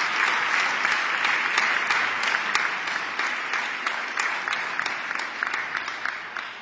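Audience applauding: many hands clapping at once, slowly dying away toward the end.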